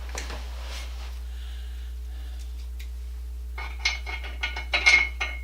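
Small metal parts clinking and rattling together in a quick run of clinks that starts about three and a half seconds in, with a steady low hum underneath.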